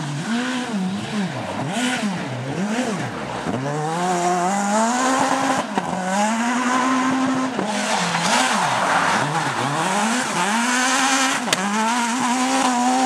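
Skoda Fabia S2000 rally car's naturally aspirated four-cylinder engine driven hard on a dirt stage, revving up and dropping back again and again as the driver shifts and lifts, with one longer high-revving pull in the middle.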